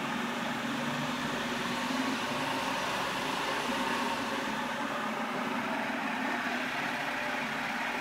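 Powermatic 1150 drill press running steadily, its 3/4 horsepower single-phase motor and spindle giving an even mechanical hum and whir.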